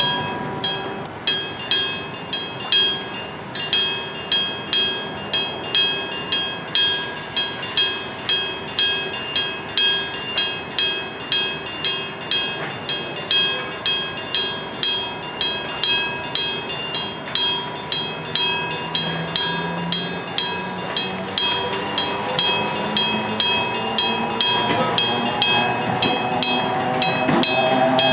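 Japanese electric-bell level crossing alarm (denshō-type) ringing, its bell struck in a steady, even rhythm with bright metallic ringing. Near the end a train's running noise grows louder and rises in pitch under the bell.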